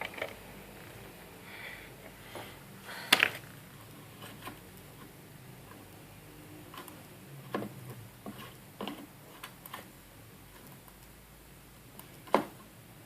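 Scattered small clicks and knocks of tools and parts being handled during soldering of an earphone jack, the loudest about three seconds in and another near the end.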